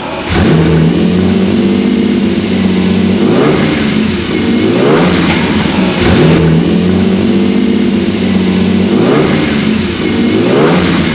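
A 1987 Lamborghini Countach's V12, freshly rebuilt, catches and runs on its first start. It settles into a steady run and is blipped several times, the pitch rising and falling with each rev.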